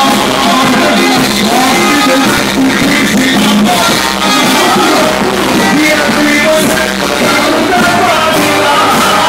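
Live band music with a lead singer, played loud and without a break through horn loudspeakers by the band riding on a festival giglio tower.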